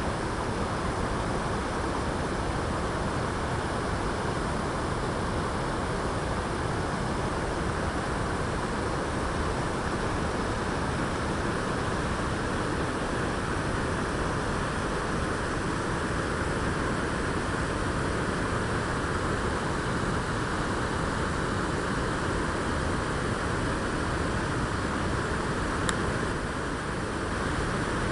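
River water pouring over a low weir and rushing through the rocky rapids below: a steady, unbroken rush of white water.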